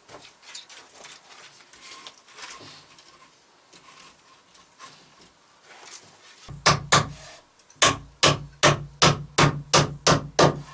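Hammer driving nails into wood: faint small knocks at first, then a few sharp blows about six and a half seconds in, followed by a steady run of about ten blows, three to four a second.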